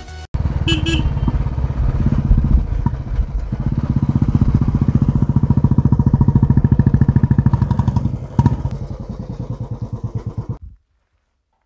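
Motorcycle engine running under the rider, with a steady pulsing beat that strengthens in the middle, then slows and thins out. It stops suddenly near the end.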